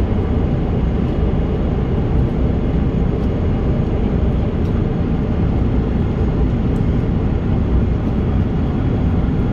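Steady roar of a Boeing 777-300ER's cabin in flight: engine and airflow noise heard from a passenger seat, deep and unchanging.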